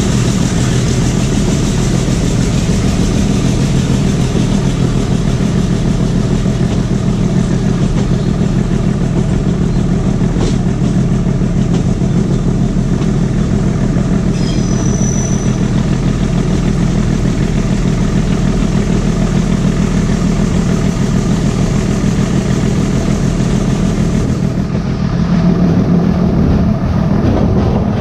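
ALCO diesel locomotive engine of a metre-gauge train running steadily under load as the train climbs the ghat, a loud continuous drone mixed with rolling and wind noise. A brief high-pitched tone comes about halfway through, and the engine grows a little louder near the end.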